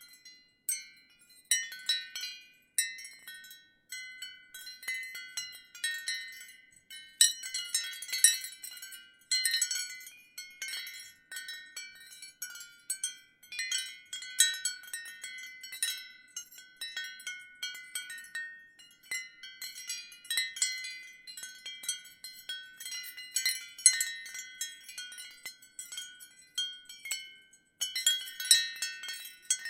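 Ceramic wind chimes tinkling in a gentle breeze: irregular light strikes of high, ringing notes that overlap. The strikes come thicker about a quarter of the way in and again near the end, after a brief lull.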